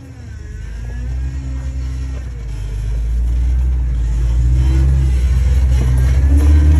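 Off-road rock crawler's engine working under load as a large tyre climbs over boulders, growing steadily louder.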